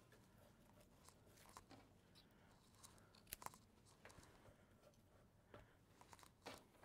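A handful of faint, short crunches and snaps of fresh flower stems and foliage being trimmed with a florist's knife and pushed into a vase, against near silence.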